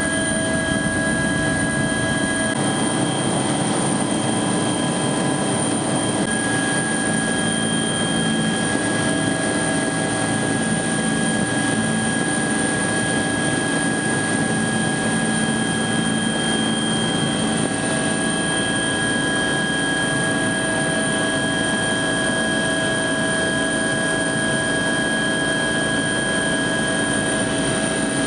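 Helicopter cabin noise heard from inside the aircraft: a steady drone of engine and rotor with several steady high-pitched whines running through it, unchanging throughout.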